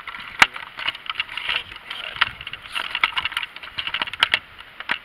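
Irregular rustling and scraping with many sharp clicks and knocks, close to the microphone.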